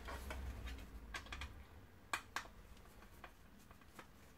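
Faint clicks and ticks of a Phillips screwdriver backing screws out of a plastic vacuum cleaner hose carrier, with two sharper clicks about two seconds in.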